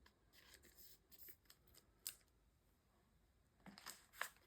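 Faint rustling and a few light taps of trading cards being handled and placed, with a small cluster of clicks near the end.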